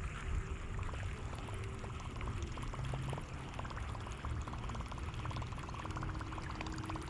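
Wind buffeting the microphone, with a steady hiss and a run of faint, quick ticks.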